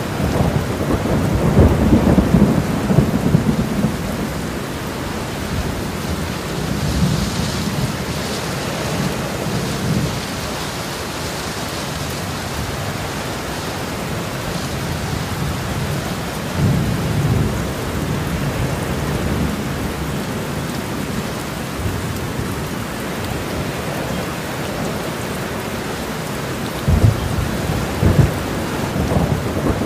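Steady rain with low rolls of thunder swelling up several times, the heaviest near the start and near the end.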